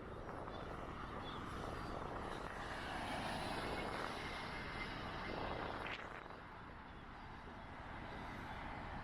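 Steady outdoor rumble with wind buffeting the microphone.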